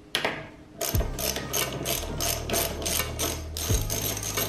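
Ratchet wrench with a 12 mm socket clicking rapidly, about six clicks a second, as it is worked back and forth to undo a scooter's front brake caliper mounting bolt.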